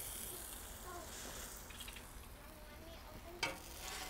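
Faint voices in the background over a steady high hiss, with one sharp tap about three and a half seconds in.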